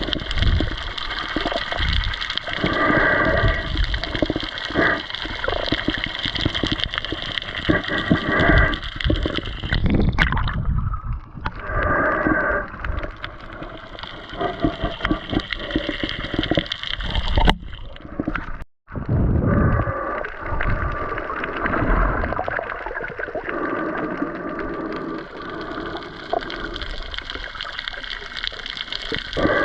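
Water gurgling and sloshing against an underwater camera, with irregular low thuds and bubbly pulsing throughout; the sound drops out briefly a little past the middle.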